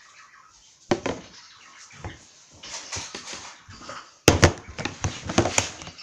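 Close handling noise right at the microphone: a knock about a second in, then soft rustling, then a run of loud clicks and clatter from about four seconds in as things are moved about on the table.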